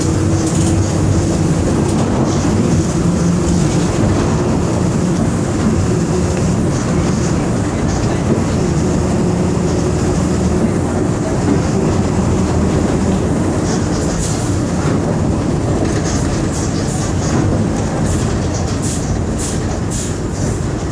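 Volkswagen 17.230 EOD bus under way, heard on board: a steady diesel engine drone over road noise. Sharp rattles and clicks come in over the last several seconds.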